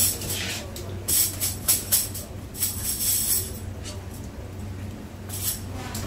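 Quick bursts of sharp, ringing metallic clinking and scraping from knife work at a fish-filleting table, clustered from about a second in to past three seconds, with one more burst near the end, over a steady low machine hum.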